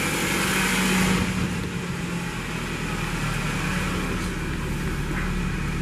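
Toyota 1ZR 1.6-litre four-cylinder petrol engine running steadily with an even hum; the running is stable. The sound grows duller about a second in.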